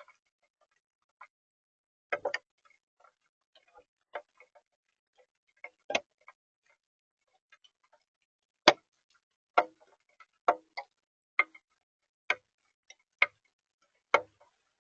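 Sharp single taps on the bird feeder, close to its built-in microphone: a few scattered ones at first, then about one a second through the second half.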